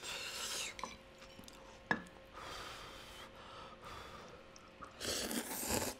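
Quiet breathy gasps and exhales after a spicy mouthful, with a couple of light clicks of chopsticks against a ceramic bowl early on, and a louder blow of breath on a lifted bundle of noodles near the end.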